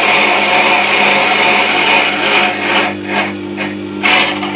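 Record Power WG200 wet stone sharpener running with a steady hum while a dressing tool is drawn across the turning stone. The dressing tool makes a continuous gritty scraping that breaks into a few short separate strokes after about three seconds.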